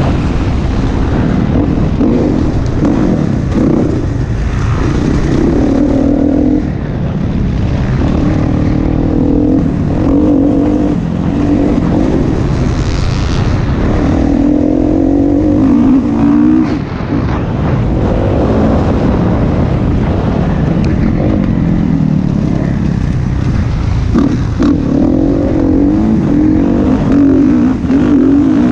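Motocross dirt bike engine heard from on board, revving up hard and dropping off again and again as the rider accelerates out of turns and backs off. There is a steady rush underneath.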